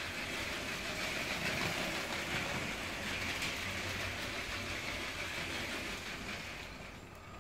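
Motorised LEGO City Cargo Train 60052 running along its plastic track: a steady whirr from its Power Functions train motor and wheels, which dies away near the end.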